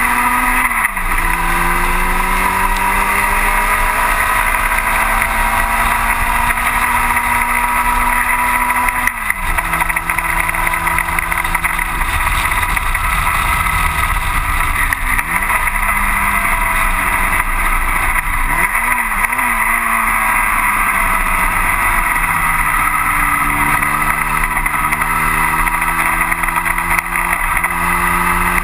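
1960 Cooper T-52 Formula Junior's four-cylinder engine at racing speed, heard from the cockpit: the revs rise and fall through the corners, with a sudden drop in pitch at a gear change about nine seconds in, brief lifts off the throttle in the middle, and a long climb in revs near the end. Wind rushes past the open cockpit.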